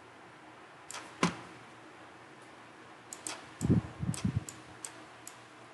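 Computer mouse button clicks while drawing in a paint program: two sharper clicks about a second in, then a run of lighter clicks about two a second, with a few low thumps in the middle.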